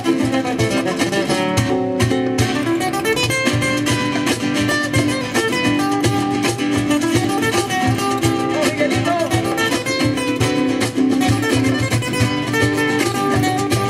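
Live acoustic band playing: several acoustic guitars strumming and picking over a steady beat from cajón and hand-drum percussion.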